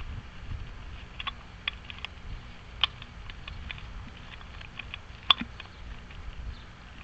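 Irregular small clicks and taps of metal lock parts and tools being handled while a door lock is worked on during a rekey, with one sharper click a little after five seconds.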